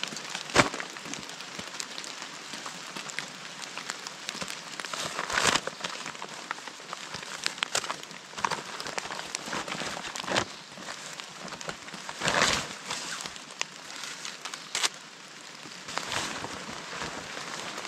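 Heavy rain falling steadily, with louder bursts of rustling and crinkling every few seconds as a plastic tarp is pulled out of a rucksack and shaken open.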